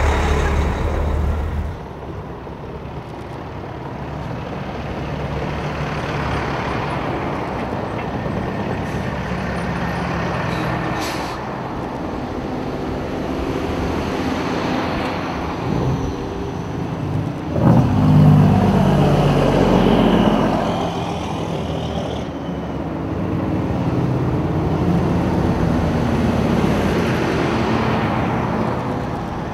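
Custom Peterbilt and Kenworth semi trucks driving past one after another, their diesel engines swelling and fading as each goes by. The loudest pass comes a little past halfway.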